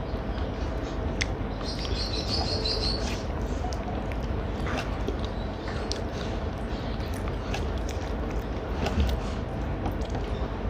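Close-up eating sounds: chewing and scattered small clicks, with a bird chirping in a short rapid trill about two seconds in.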